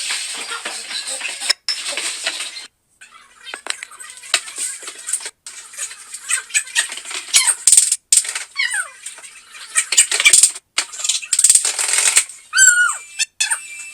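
Kitchen cooking sounds: utensils clicking and clinking against pans over a steady hiss, chopped into several short pieces by abrupt cuts, with a few brief gliding pitched sounds, one near the end.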